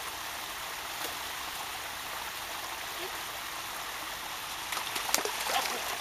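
Small woodland waterfall and stream running steadily, with a few sharp splashes about five seconds in as a retriever wades through the falling water.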